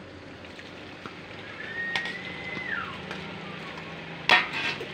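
Hot oil in a steel kadhai sizzling and bubbling steadily as pieces of maida dough are tipped in from a steel bowl. A short whistle-like tone falls in pitch around the middle, and there is a loud clatter near the end.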